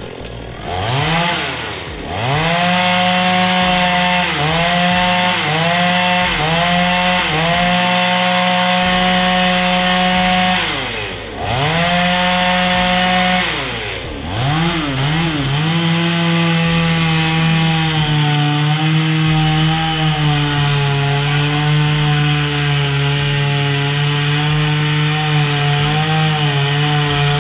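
Petrol chainsaw engine revving in a series of short throttle blips that rise and fall, then held at high revs for longer stretches. From about halfway it runs continuously with its pitch wavering and sagging slightly as the chain cuts through wood.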